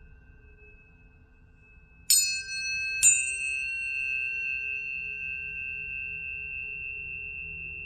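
Planetary tuning forks struck twice, about a second apart, each strike giving a bright metallic ping. A pure high tone then rings on, slowly fading, over a fainter lower tone.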